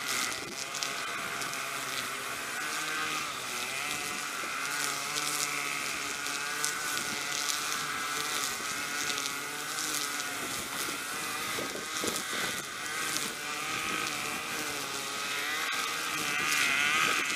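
String trimmers running as they cut tall grass, the engine whine wavering up and down in pitch.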